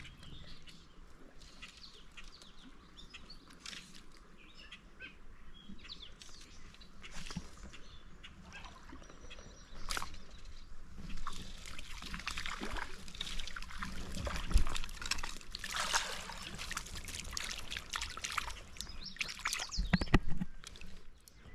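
Creek water trickling and sloshing, with many small clicks and splashes that grow busier and louder in the second half, and a couple of sharper knocks near the end.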